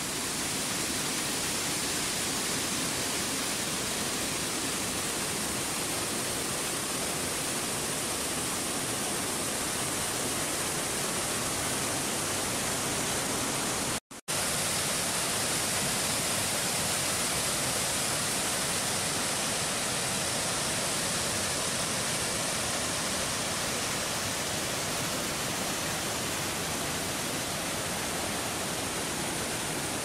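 Waterfall and river rapids rushing as a steady, dense hiss, cut off for a split second about halfway through.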